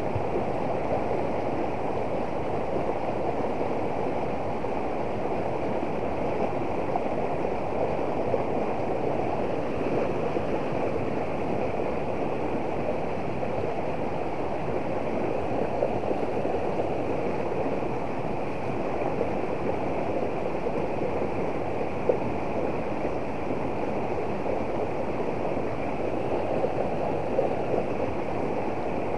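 Shallow river running over rocks, a steady rushing of water.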